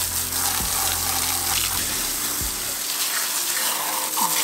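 A garden hose spraying a jet of water onto a motorcycle's rear wheel and chain, rinsing off kerosene and grime; a steady hiss of water.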